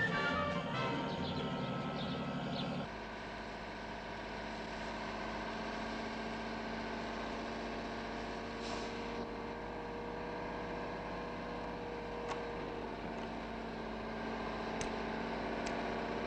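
Theme music cuts off about three seconds in, leaving a truck engine running steadily, heard from inside the cab. A few faint clicks come in the second half.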